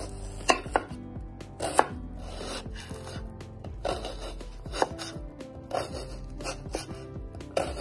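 A steel kitchen knife slices through a peeled white onion on a wooden cutting board. There are about eight crisp, crunchy cuts at an uneven pace, each ending in a knock of the blade on the board, over soft background music.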